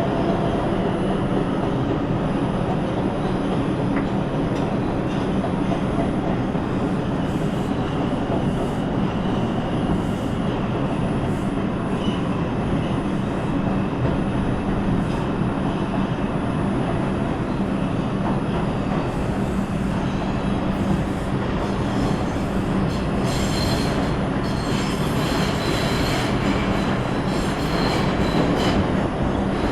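New York City subway 5 express train running between stations, heard from inside the car: a steady rumble of wheels on the track. High wheel squeals come and go, more often in the second half.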